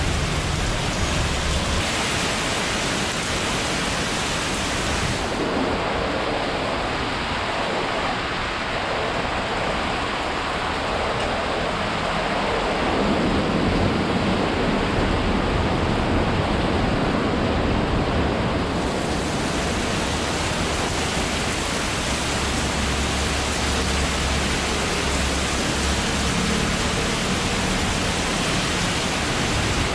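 Typhoon rain and wind: a steady, even rush of noise, with a low rumble that swells and fades at times.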